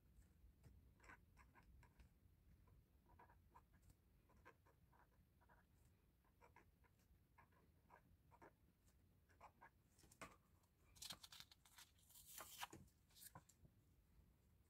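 Faint desk handling sounds: scattered small taps and scratches as photocards and plastic sleeves are handled, then a louder crinkly rustle of plastic for about three seconds starting some ten seconds in.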